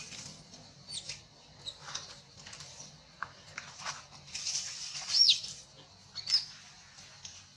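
High-pitched squeaks and short squeals from a baby macaque, repeated at intervals. The loudest is a squeal falling in pitch about five seconds in, followed by another sharp squeak a second later.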